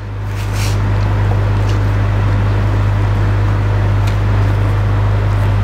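A steady low hum with an even rushing hiss over it, unchanging throughout.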